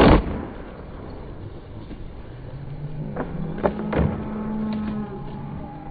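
Skateboard landing on concrete with a loud smack right at the start, then its wheels rolling over the concrete. A few sharp knocks come about three to four seconds in, over a steady low hum that rises slightly in pitch through the middle.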